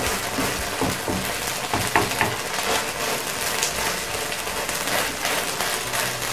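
Semolina cheela frying in oil in a non-stick pan on high flame, with a steady sizzle. A wooden spatula taps and scrapes against the pan now and then.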